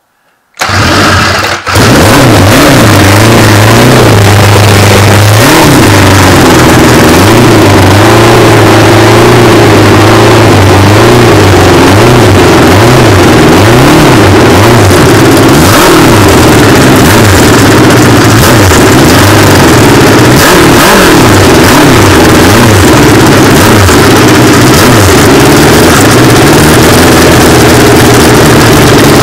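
A V engine on a run stand with open exhaust headers starts abruptly about a second in, then runs very loud, its speed rising and falling as the throttle is blipped.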